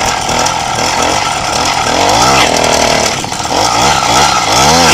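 Small motorcycle engine revved up twice, its pitch climbing and falling each time, as the rider tries to lift the front wheel for a wheelie that doesn't come up.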